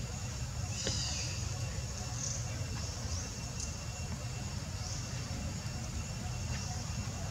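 Outdoor ambience: a steady low rumble under a constant high insect-like hiss, with a few short, high chirps scattered through it.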